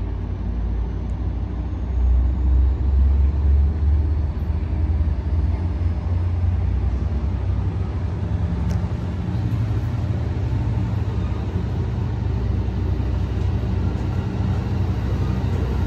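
Amtrak Capitol Corridor train pulling out of the station: a steady low diesel rumble from the F59PHI locomotive pushing at the rear, mixed with the passenger cars rolling over the rails.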